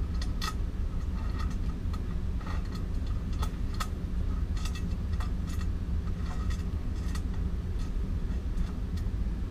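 Scattered small metallic clicks and taps of M5 screws and an aluminium angle bracket being handled and started by hand into an aluminium extrusion bed frame, over a steady low hum.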